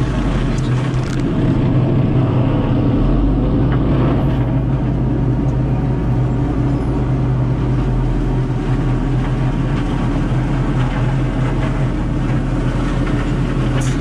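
Prime Tech PT175 tracked forestry mulcher running steadily at working revs, its FAE drum head grinding brush. The heavy diesel drone holds even with no letting up.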